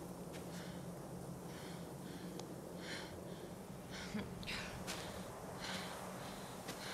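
A woman's heavy, effortful breathing: gasps and puffs of breath every half second to a second as she strains to heave a heavy load, over a low steady hum.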